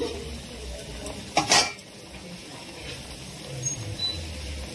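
Jackfruit batter deep-frying in hot oil in a steel wok, with a steady sizzle. About a second and a half in, a metal utensil clatters loudly against the pan, and a few lighter knocks follow.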